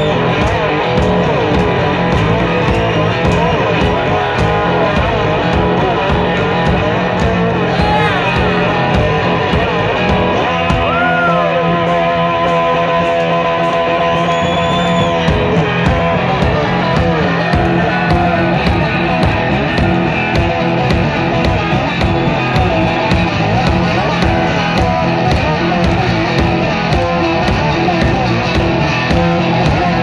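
Live blues-rock band playing: a drum kit keeping a steady beat under electric guitar, with a few bent lead notes.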